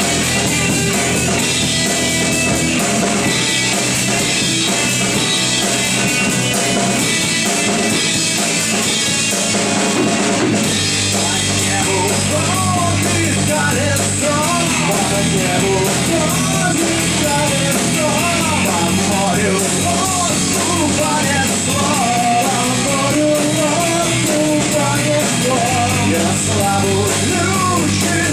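Rock band playing an instrumental passage with drum kit, bass and electric guitar. From about ten seconds in, a lead melody with bending, wavering notes runs over the band.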